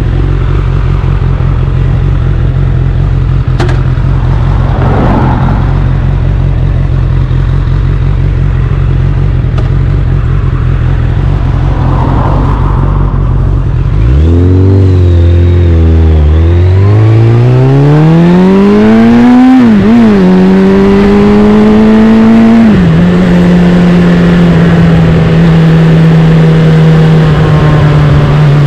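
Suzuki Bandit 650's inline-four engine through an aftermarket Black Widow exhaust, idling steadily, then pulling away about halfway through. It revs up through the gears, with a sharp drop in pitch at each of two upshifts, and settles into a steady cruise.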